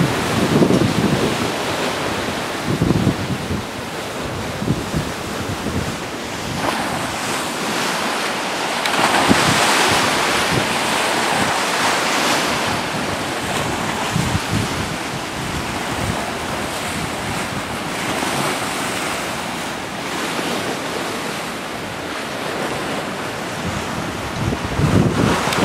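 Storm-force wind blowing hard and buffeting the microphone in gusts, with a louder rush of wind lasting a few seconds about a third of the way in. Rough, wind-driven water churns toward the end.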